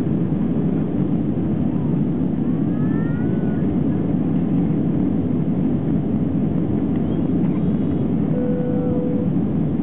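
Airbus airliner's jet engines at takeoff thrust, heard from inside the cabin as a steady, loud rumble through the end of the takeoff roll and the lift-off. A brief faint steady tone sounds near the end.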